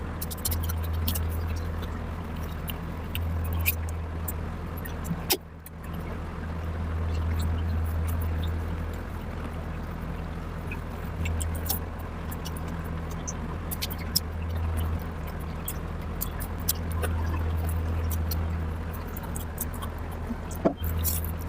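Close-up eating sounds: scattered wet clicks and mouth smacks of someone chewing a rice and curry meal, over a steady low hum.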